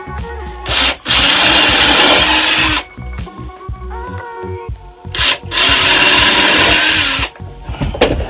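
Cordless drill boring into pine boards in two bursts of about two seconds each, one about a second in and the other about five seconds in: pre-drilling pilot holes.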